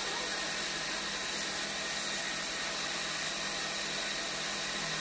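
Wood lathe running steadily with a hand chisel cutting into the spinning wooden workpiece, a continuous hiss of cutting over the machine's even hum.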